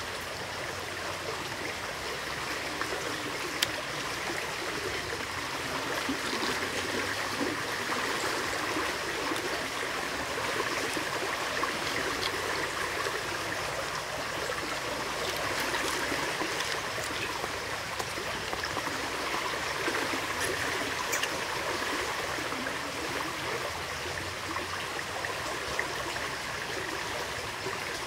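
Steady rush of flowing river water. A single sharp tap about three and a half seconds in.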